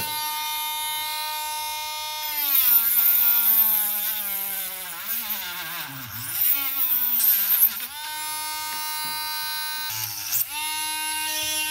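Cordless rotary tool with a cutoff wheel cutting through a plastic toothbrush handle. Its steady high whine drops in pitch, wavers and gets louder while the wheel bites in from about two seconds to about eight seconds, then climbs back to full speed, with a brief second dip near ten seconds.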